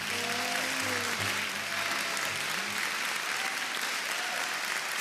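Large theatre audience applauding, steady dense clapping. A faint pitched sound trails off under it in the first three seconds.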